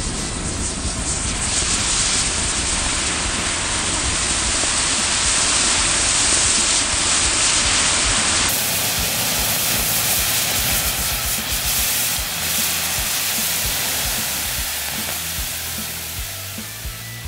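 A big bundle of sparklers burning with a dense, loud hiss. A little past halfway water is poured onto the burning bundle and the sound turns to a sizzling hiss of steam that fades toward the end.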